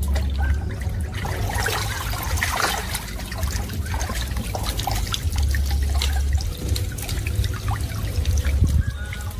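Pool water splashing and trickling, with many small splashes.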